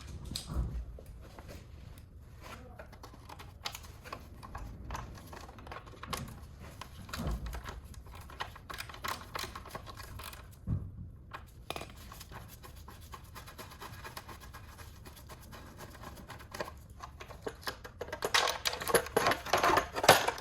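Hand tools working the bolts of a motorcycle's lower fairing: scattered small metallic clicks and scrapes, then a louder run of metal clatter near the end.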